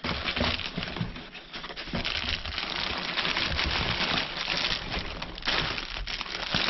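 Continuous rustling and crinkling of shredded paper packing as hands dig through a cardboard shipping box, joined in the second half by the crinkle of a plastic bag being pulled out through the paper.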